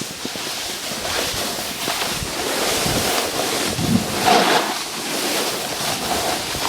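Wind rushing over a moving action camera's microphone with the scrape of sliding over snow, rougher and louder about four seconds in.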